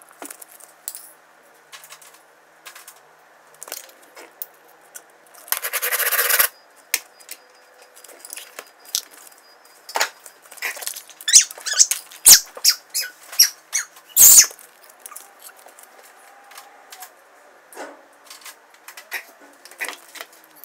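Die-cast toy cars and a plastic Hot Wheels track being handled: scattered clicks and knocks, a rattling burst lasting about a second some five seconds in, and a cluster of sharp clacks and knocks between about ten and fourteen seconds in.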